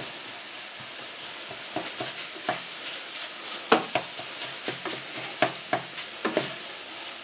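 Seasoned ground beef sizzling gently over low heat in a stainless steel skillet while a utensil stirs it, with irregular scrapes and clicks against the pan.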